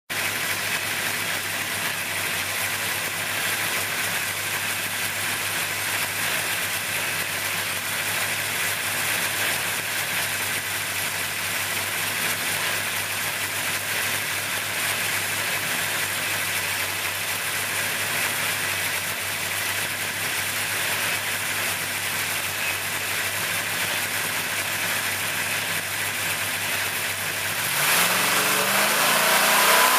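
632 cubic inch big-block V8 running on an engine dyno, idling steadily, then revving up with a rising pitch and getting louder about two seconds before the end.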